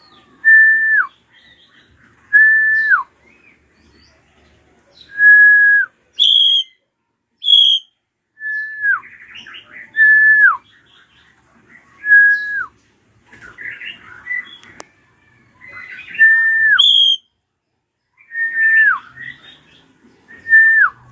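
Srigunting krantil (a drongo) calling: a clear whistled note, held level and then dropping sharply, repeated about nine times at roughly two-second intervals, with a few short higher notes and harsh scratchy chatter between them.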